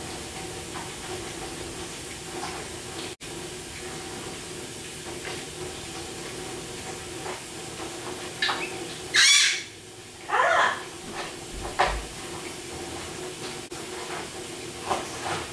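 A nine-month-old baby lets out a few short, high squeals about nine to twelve seconds in, over a steady room hum.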